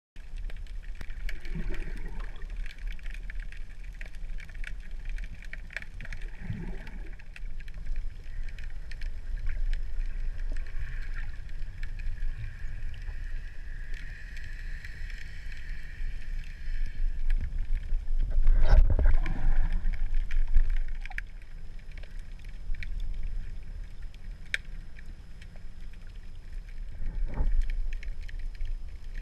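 Underwater sound through a GoPro's waterproof housing while snorkeling: a muffled, steady low rumble of water moving around the camera, with scattered faint clicks. It swells louder for a few seconds about two-thirds of the way through.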